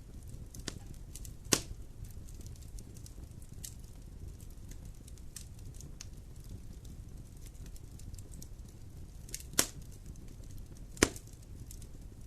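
Wood fire burning in a fireplace: a steady low rumble of flames with constant small crackles and three loud sharp pops, about a second and a half in, near the middle of the second half, and again a second and a half later.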